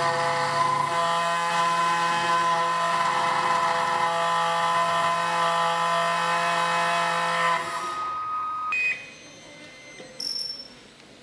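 SEC-E9 CNC key cutting machine running, its cutter milling a Honda HON66 key blade with a steady, loud whine that has many overtones. The whine stops about 7.5 s in, a single tone lingers until about 9 s, and then it goes quiet. A short high-pitched sound comes about 10 s in.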